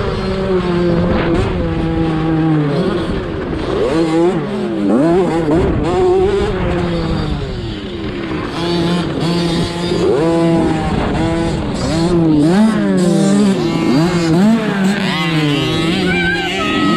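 Cobra Jr 50cc two-stroke single-cylinder motocross minibike engine at racing throttle, heard from the rider's helmet, its pitch repeatedly climbing as it revs out and dropping as the throttle eases off.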